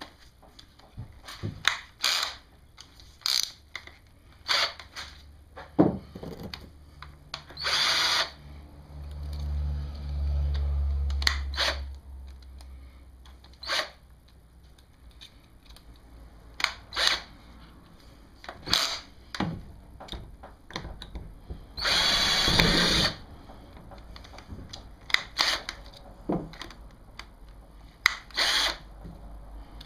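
Power drill run in many short bursts and a few longer runs, driving self-tapping, self-sealing screws into a kayak hull to mount a gear track.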